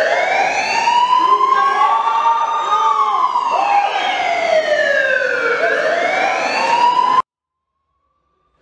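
Siren-like sound effect in the dance routine's soundtrack: several tones sweeping slowly up and down together. It cuts off abruptly about seven seconds in, leaving dead silence.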